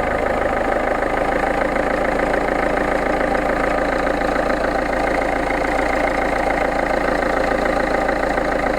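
2.0 HDi 66 kW four-cylinder common-rail turbodiesel idling steadily, with the bad noise that the owner wants to show.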